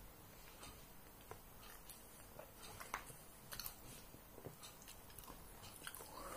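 Faint chewing of a mouthful of ham sandwich, with soft scattered clicks and smacks of the mouth.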